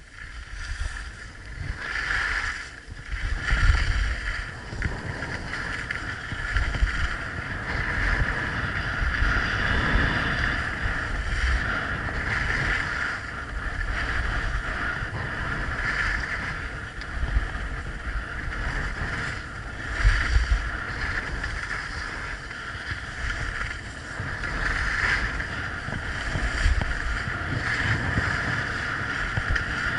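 Skis sliding and scraping over groomed snow on a downhill run, a steady hiss that swells and eases with the turns, with wind rumbling on the microphone.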